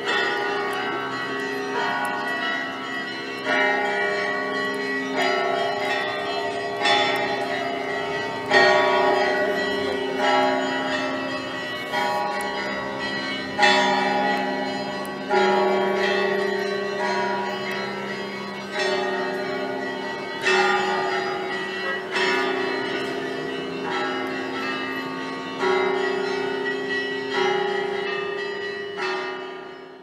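Russian Orthodox church bells ringing: several bells of different pitches struck in a repeating peal, a new stroke about every one and a half to two seconds, each ringing on into the next. The ringing fades out at the very end.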